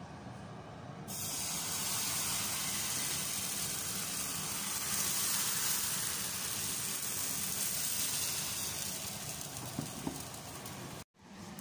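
Kefir pancake batter sizzling in a hot frying pan: a steady hiss that starts suddenly about a second in and cuts off near the end.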